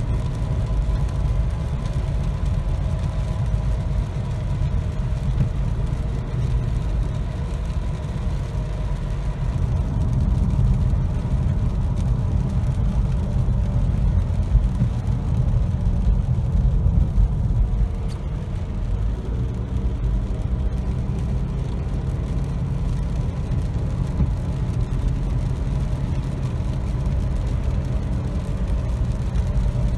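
2008 Toyota RAV4 at cruising speed, a steady low rumble of road and drivetrain noise with a grinding noise that has persisted for a couple of months and whose cause the owner doesn't know. A faint steady tone sits over the rumble, clearest in the first ten seconds.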